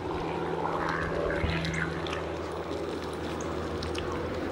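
Phantomgogo Commuter R1 electric scooter riding along: a steady low hum from its 450-watt brushless motor under tyre and wind noise on the asphalt.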